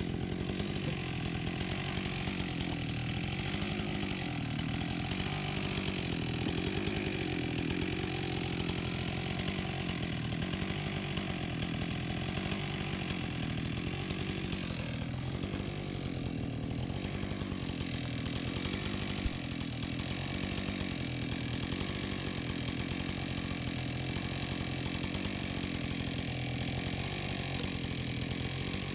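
Husqvarna 576 XP two-stroke chainsaw running at high revs, cutting wood, its engine pitch wavering slightly under load. There is a small click about two-thirds of the way through.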